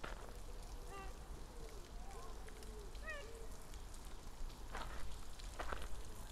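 Footsteps crunching on a gravel path, a few irregular steps, the clearest near the end. Faint distant voices run underneath, with a short high call twice.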